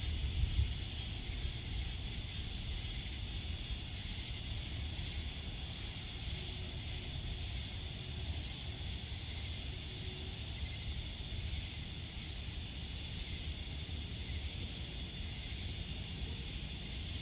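Steady outdoor evening ambience: a low rumble under a constant high-pitched insect chorus.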